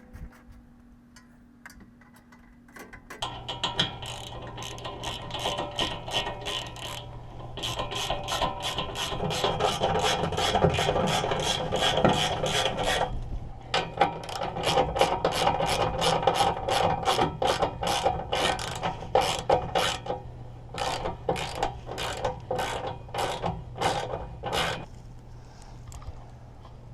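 A socket ratchet clicking in fast runs as bolts are run in on a front bumper, over a steady low hum, starting about three seconds in and dying away near the end.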